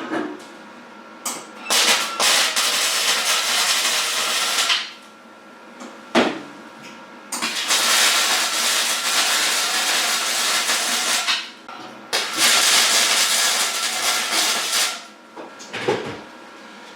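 A power tool running in three bursts of a few seconds each, with short knocks in the gaps between, as the second cross brace is fitted into the sled frame.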